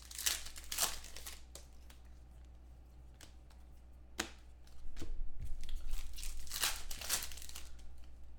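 Foil trading-card pack wrapper being torn open and crinkled, with the cards inside handled. It comes in short rustling tears near the start, a sharp one about four seconds in, and a longer stretch of crinkling from about five to seven seconds in.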